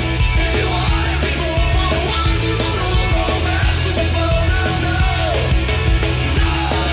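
Background rock music, playing steadily.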